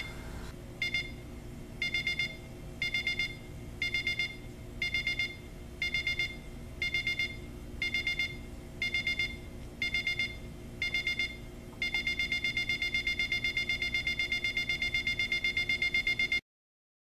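Equity 65903 EcoTech Solar LCD alarm clock's alarm beeping: short groups of rapid high beeps about once a second, switching about twelve seconds in to nonstop rapid beeping. The beeping cuts off suddenly near the end.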